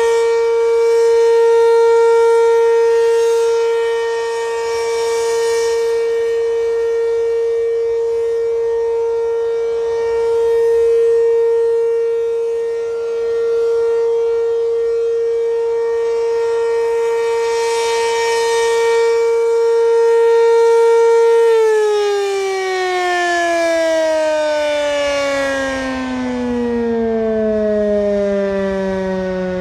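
ACA P-15 electromechanical warning siren sounding a steady single-tone alert, swelling and fading in loudness about every nine seconds. About 21 seconds in, the power cuts and the pitch slides steadily down as the siren winds down at the end of the alert cycle.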